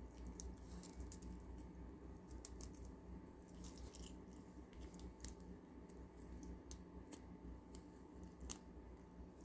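Faint, scattered small clicks of plastic kandi beads being handled and taken off an old bracelet string.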